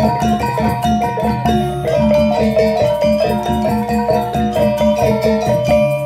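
Balinese gong kebyar gamelan playing: bronze metallophones strike quick, dense runs of bright ringing notes over a steady low tone, with frequent short percussive strokes.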